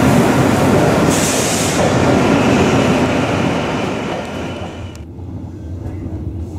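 Italo high-speed train (Alstom AGV) moving along a station platform: a loud, dense rumble with a brief high hiss about a second in. About five seconds in, the sound drops sharply to a quieter, steady rumble of the carriage interior.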